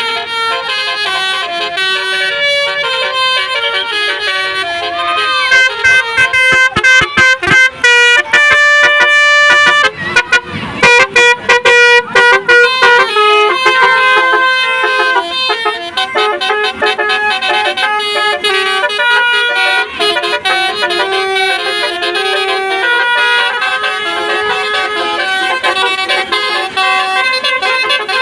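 Telolet bus horns, a set of multi-tone air horns, playing a melody in quick stepped notes throughout, loudest about eight to thirteen seconds in.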